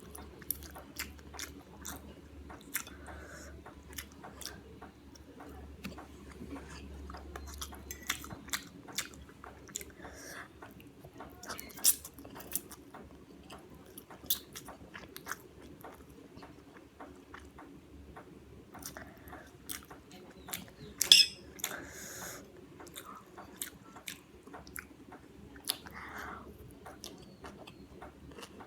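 Close-miked chewing and biting of food, with many short, irregular wet mouth clicks and one louder cluster of clicks a little past two-thirds of the way through.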